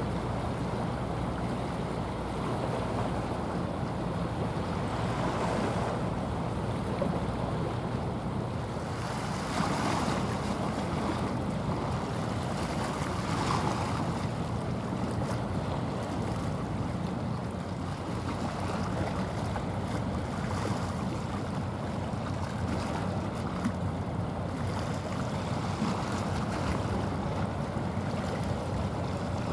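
Steady low drone of a passing small container ship's engine, mixed with constant wind noise on the microphone and the sound of waves.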